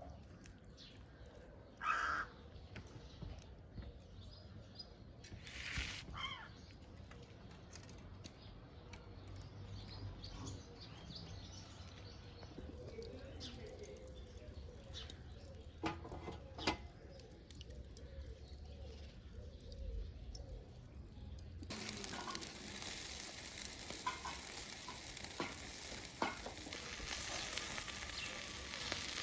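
Two short bird calls early on and a few sharp knocks midway over a low rumble; about two-thirds of the way in, a steady hiss starts suddenly and runs on.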